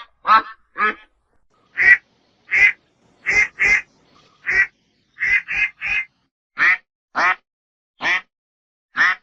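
A duck quacking: a string of about a dozen short, separate quacks at irregular spacing, some in quick pairs, with a pause of about a second near the start.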